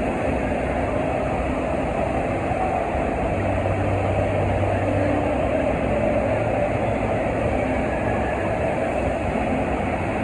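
FlowRider sheet-wave simulator running: a steady rush of water pumped up the ride surface, with a low rumble beneath it.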